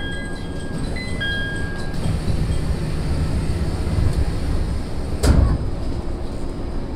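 A two-note chime rings twice in the first two seconds, a higher note falling to a lower one. Then the running rumble of the SAT721 series electric train grows louder, with one sharp clank about five seconds in.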